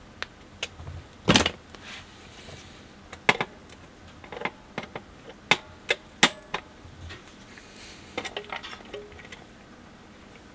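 Small metal parts of a BSR UA15SS record changer clicking and tapping against its metal deck plate as they are handled and fitted by hand and with pliers: a dozen or so sharp, irregular clicks, the loudest a knock about a second in, one with a brief metallic ring.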